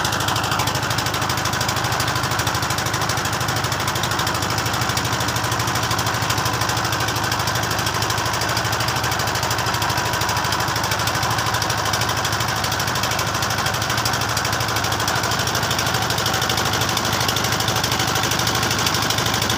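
Engine of a wooden motorized river boat running steadily, with a fast, even knocking beat.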